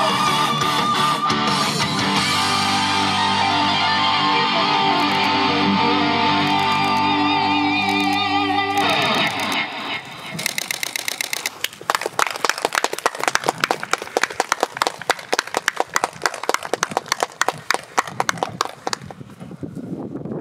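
Pop song with electric guitar holding sustained chords, which end about nine seconds in. After it comes a long, dense patter of irregular clicks.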